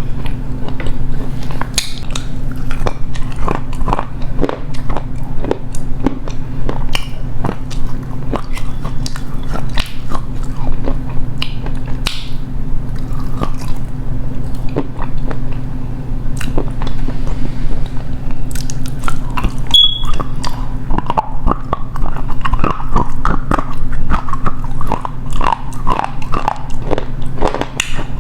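Close-miked biting and chewing of edible clay: dense, irregular crisp crunches and cracks, over a steady low hum.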